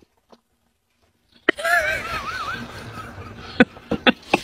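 A person laughing in a high, wavering voice, trailing off, followed by a few short sharp clicks near the end.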